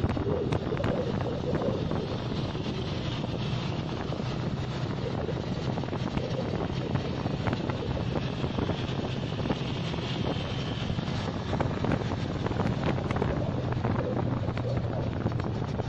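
Wind buffeting the microphone of a phone filming from a moving motorcycle, over a steady motorcycle engine hum and road noise.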